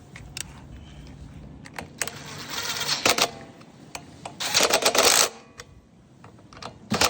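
Small metal parts and tools clicking and rattling in three short bursts of handling, with no engine running, as the mower's carburetor linkages are worked.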